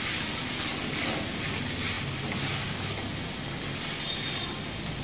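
Soaked sabudana (sago pearls) and boiled potato sizzling in a kadai as they are stirred and mixed with a spatula: a steady frying hiss with light scraping strokes.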